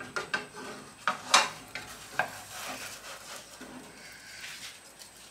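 Wooden spatula scraping and knocking against a nonstick frying pan as a large stuffed fried bread is worked loose and turned over, a few short scrapes with the loudest about a second and a half in, over a faint sizzle of frying.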